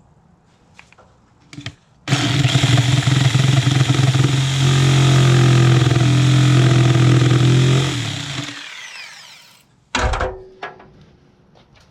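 A power tool runs loudly for about six seconds, then winds down as it spins to a stop. A sharp knock follows about two seconds later.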